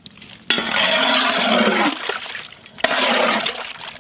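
Ladle stirring chicken curry gravy in a large pot: wet sloshing of liquid and meat, in two spells, the first longer.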